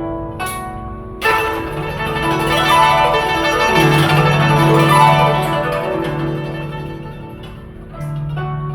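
Guzheng playing a slow melody in separate plucked notes; about a second in, a sudden dense wash of many ringing strings swells and slowly dies away, and single plucked notes return near the end.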